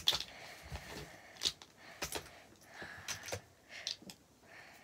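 Plastic star infinity cubes being handled, twisted and set down on a paper sheet: a few light, scattered clicks and soft rustles.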